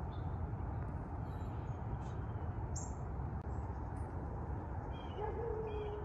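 Backyard ambience: a steady low rumble with small birds chirping now and then, and one low, drawn-out call about five seconds in.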